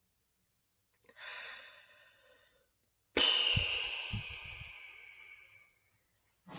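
A person sighing close to the microphone. A faint breath comes about a second in, then a loud exhale starts suddenly about three seconds in and trails off over two seconds, with a few low puffs of breath hitting the mic.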